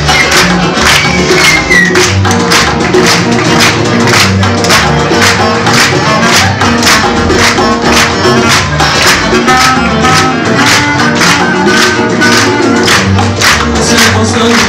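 Live band playing an instrumental passage between sung verses: a steady percussion beat under bass and a melodic line.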